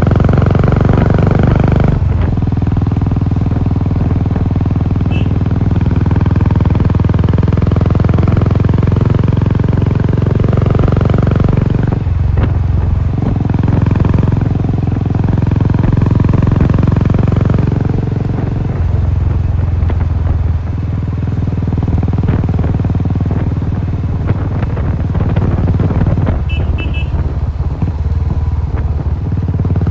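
Royal Enfield Classic 350's single-cylinder engine through a Cobra aftermarket silencer, heard onboard while riding. Its note changes a few times, about 2, 12 and 19 seconds in, as the throttle and gears change.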